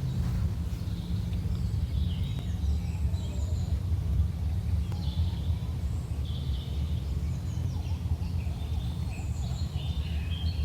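A steady low rumble with scattered bird chirps and calls over it throughout.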